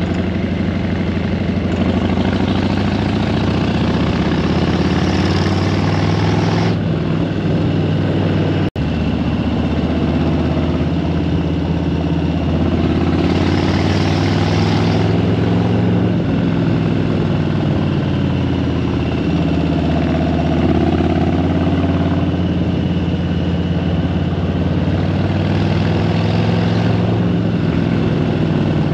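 Motorcycle engine running steadily under way, heard from the rider's seat, its pitch shifting with the throttle, with wind rushing over the bike in stretches. The sound cuts out for an instant about nine seconds in.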